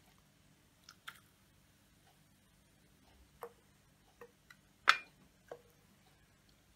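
A wooden spoon and the rim of a frying pan knocking lightly against glass ramekins as hot caramel is spooned into them: scattered sharp clicks and clinks, the loudest about five seconds in.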